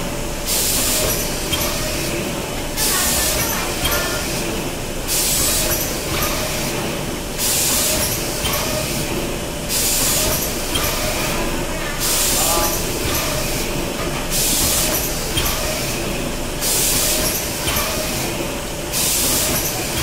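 Automatic case-making machine for hardcover book covers running through its cycle: a steady machine hum and clatter, with a hiss of compressed air from its pneumatic hoses about every two and a quarter seconds.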